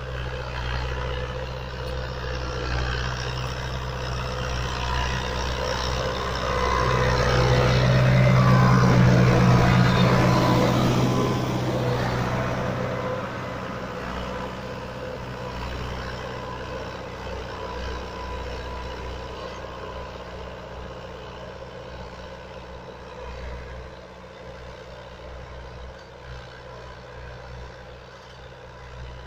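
Fiat 640 tractor's four-cylinder diesel engine running steadily under load while pulling a tine cultivator through a field. It grows louder a little past a quarter of the way in, then fades gradually toward the end.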